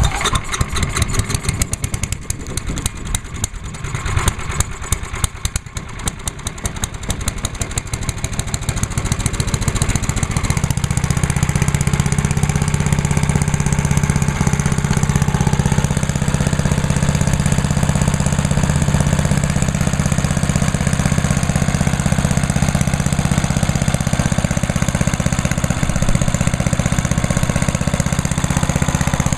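10 hp Tecumseh single-cylinder engine on an MTD chipper/shredder running just after a cold start on choke. For about the first ten seconds it fires unevenly, surging and dipping, then it settles into a steady, even run.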